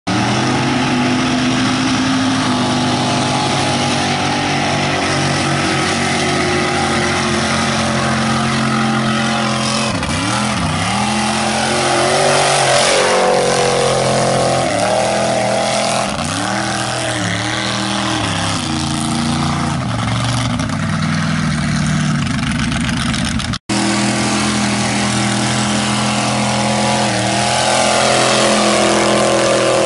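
Lifted Toyota Tacoma mud truck's engine held at high revs while its oversized tires spin and throw dirt. The revs dip and climb back several times, and the sound cuts out for an instant about three quarters of the way through.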